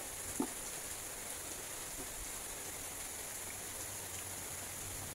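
Steady rushing noise like running water, with a high hiss above it, and one short faint sound about half a second in.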